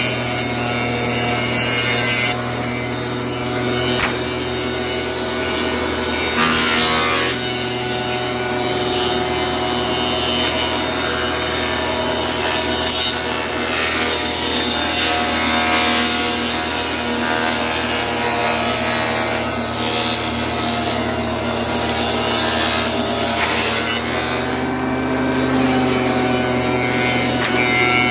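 Single-spindle wood moulder running with a steady motor hum while its cutter shapes wood, the cutting noise swelling and easing as stock is fed through.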